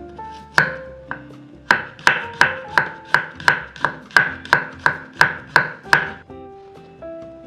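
Kitchen knife chopping garlic cloves on a thick wooden cutting board: a couple of single cuts, then a steady run of sharp chops about three a second that stops near the end. Soft background music plays underneath.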